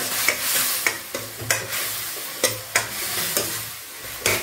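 Spatula stirring chopped mutton liver in a metal kadai, scraping and clinking against the pan several times over the steady sizzle of the frying liver and spices.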